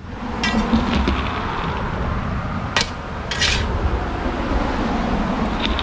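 Steel digging bar packing loose backfill soil around a cardboard sonotube form: scraping and thudding into the dirt, with a few sharp clinks, about half a second in, near three seconds and near the end. A steady low rumble runs underneath.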